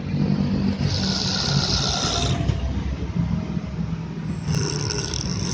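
A person snoring: a steady low rumble, with two hissing breaths, one about a second in and one near the end.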